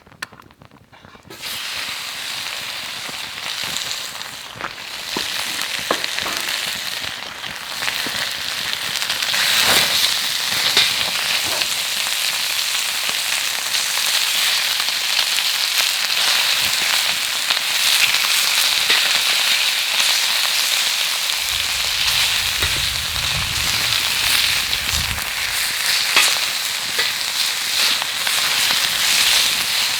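Food sizzling on a hot iron griddle over a campfire: the sizzle starts suddenly about a second and a half in, as food meets the hot plate, and grows louder over the next several seconds. A low rumble runs for a few seconds past the middle.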